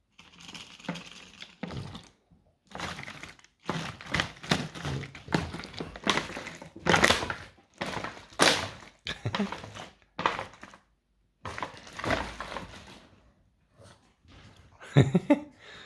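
A plastic bottle crunching and crackling in repeated irregular bursts, with short pauses between them.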